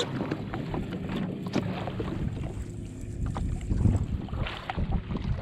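Wind on the microphone and water against the hull of a Sea-Doo Fish Pro personal watercraft, with a few small knocks.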